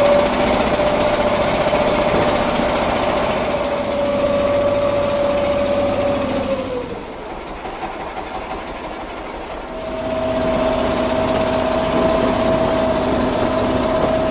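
Engine of a wooden fishing boat running with a steady hum over the wash. About six or seven seconds in the pitch slides down and the sound drops away. It comes back slightly higher and steady again at about ten seconds.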